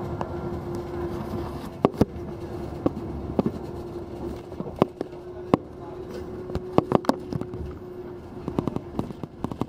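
Inside a moving vehicle: a steady road and engine rumble with a constant hum. About a dozen sharp clicks and knocks come at uneven intervals, some in quick pairs, like interior rattles or taps against the window.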